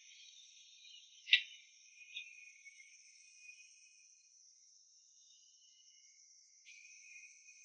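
Faint, steady, high-pitched insect chirring, with one sharp click about a second in.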